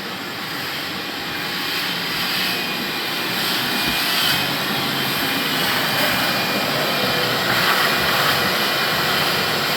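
Steady rushing noise of a machine running, growing slightly louder over the first few seconds.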